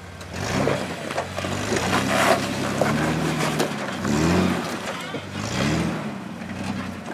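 Jeep engine revving up and down in repeated bursts, three main surges, as it crawls over rock under load, with gritty scraping noise between the revs.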